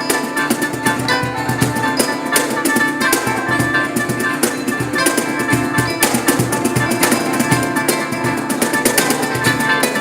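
A live band playing during a sound check, with drums and percussion keeping a steady beat under sustained instrument tones.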